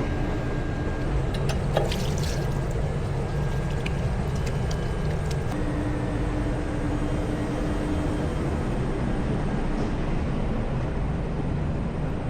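Steady low background rumble of a busy fast-food restaurant, with a few faint clicks and clinks.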